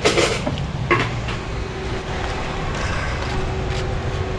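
Low rumble of outdoor street noise, with two short rustles in the first second and a faint steady hum in the second half.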